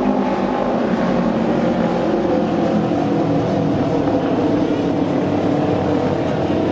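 Auto race motorcycles' 600 cc parallel-twin engines running hard on open exhausts as the bikes circle the oval: a loud, steady engine din of several overlapping notes that waver slightly in pitch.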